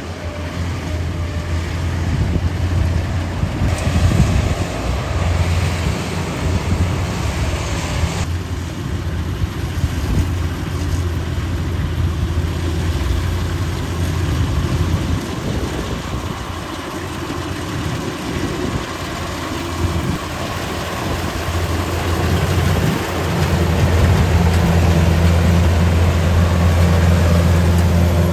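Kubota rice combine harvester's diesel engine running steadily under load as it cuts and threshes rice, a continuous low hum with mechanical clatter and rushing noise above it. It grows louder about 23 seconds in.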